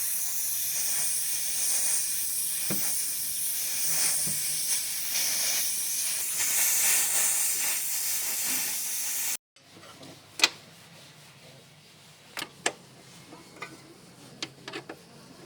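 A loud, steady hiss that stops abruptly about nine seconds in, followed by a few sharp clicks or taps over a quieter background.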